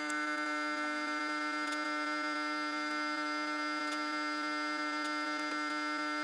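Background music: a steady held electronic chord with a faint tick about twice a second.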